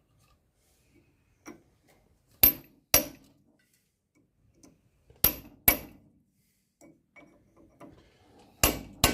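Hammer striking a chisel to bend the hub-nut lock washer over onto a flat of the nut. The hammer lands in three pairs of sharp, ringing metallic blows, each pair about half a second apart.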